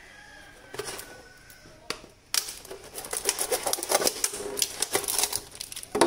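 Thin plastic water bottle crinkling and crackling as it is handled. A few scattered clicks come first, then from about two seconds in a dense run of rapid crackles.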